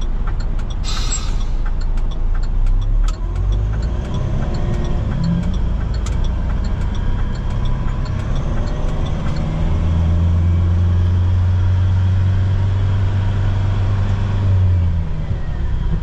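Truck engine heard from inside the cab, pulling away from a standstill in second gear and gathering speed, its note rising, then settling into a steady low drone. There is a short hiss about a second in, and faint regular ticking through the first half.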